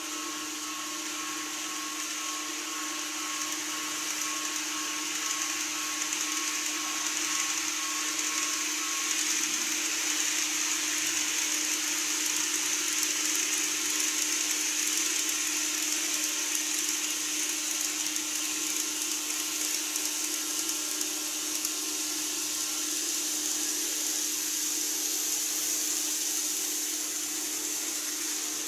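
N-scale model electric trains running on the layout's track: a steady whirr of the small motors and wheels with a high hiss, swelling gently toward the middle as a train crosses the bridge and easing off a little near the end.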